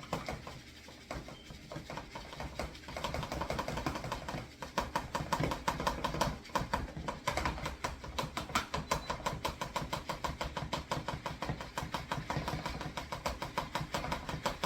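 Rapid, even clicking of a kitchen utensil working dry baking ingredients (flour and sugar) to break up the clumps, about six or seven clicks a second, getting louder about four seconds in.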